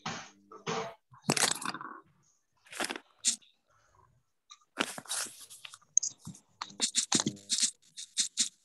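Irregular short bursts of crunching, rustling noise picked up by an open microphone on a video call, with brief quiet gaps between them.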